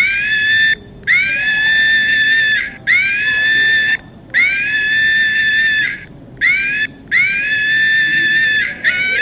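A monkey giving a series of loud, high-pitched screams, about six in a row, each rising sharply at the start and then held at a steady pitch for a second or more, with a short break between calls.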